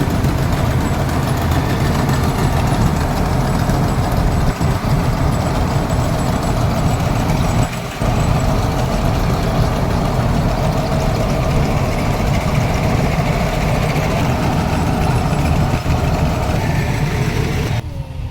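Combine harvester engine running steadily and loudly, with a brief dip about eight seconds in; the noise drops off sharply just before the end.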